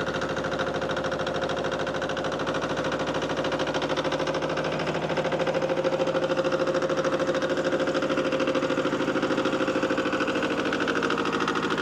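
Yanmar YM155D tractor's diesel engine running at idle just after starting, a steady even chugging that grows a little louder in the middle.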